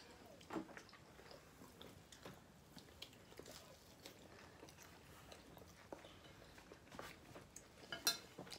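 Quiet eating sounds: faint chewing with a few light clicks of spoons and forks against plates.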